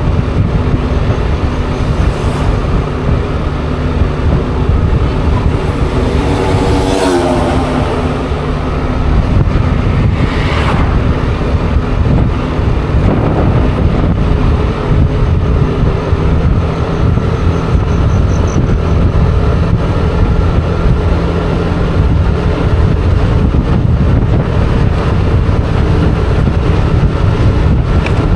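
Motor scooter riding at a steady road speed, engine running under a heavy low rumble of wind on the camera microphone, speeding up slightly toward the end. A falling tone passes about seven seconds in, and a brief whoosh comes a few seconds later.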